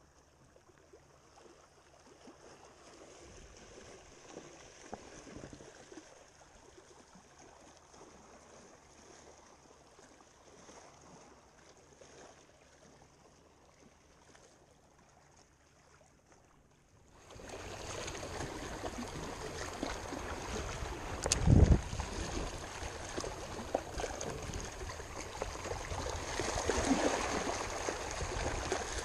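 Small waves lapping and gurgling against a rocky shoreline. The sound is faint at first, then abruptly much louder a little over halfway through, with a single heavy thump soon after.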